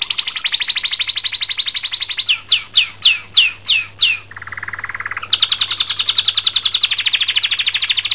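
Domestic canary singing a long song of fast rolling trills. About two and a half seconds in comes a run of six loud, separate notes, each sweeping down in pitch, then a lower buzzy trill, then a fast high trill again until the song stops at the end.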